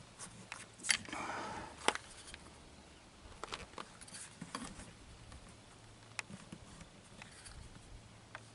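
A rubber window weather strip being handled and pressed into its channel on a Mercedes-Benz R107 hardtop: scattered light clicks, the sharpest about one and two seconds in, with brief rubbing of rubber against metal.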